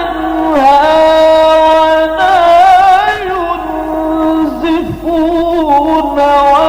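A male reciter's voice in melodic Qur'an recitation (tilawah), drawing out long held notes that waver and turn in ornaments, with a short break about five seconds in.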